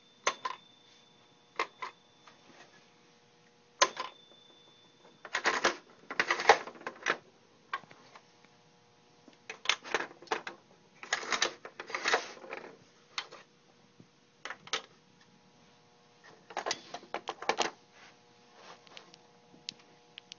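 Small pieces of a Playskool McDonald's toy playset clicking and clattering as a hand moves the figures and parts about, in several short bursts of rapid clicks with single knocks between.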